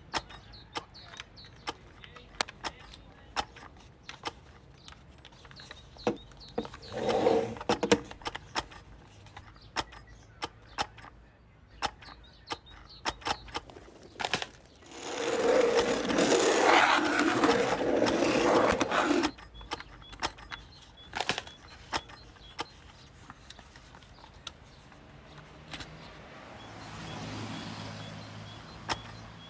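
Animation sound effects: a run of light, irregular clicks and taps. They are broken about 15 seconds in by a loud hissing blast with a steady tone, lasting about four seconds, and earlier by a shorter, similar sound. Near the end comes a low hum that swells and fades.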